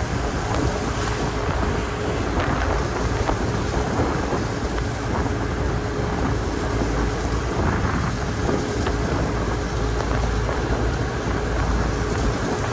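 Steady wind rush buffeting the microphone on a car ferry in rough seas, over the constant hum of the ship's engine and the sea.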